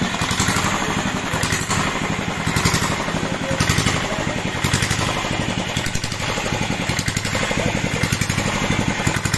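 An engine running steadily with a fast, even pulsing, and a few sharp knocks roughly a second apart in the first half.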